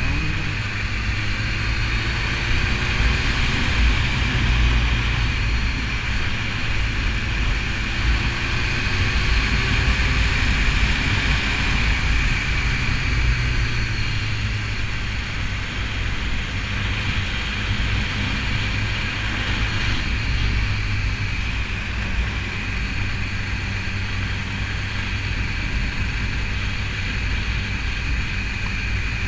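BMW S1000RR's inline-four engine running while the bike is ridden, over a steady rushing noise. The engine pitch rises a few times in the first several seconds, then holds fairly even.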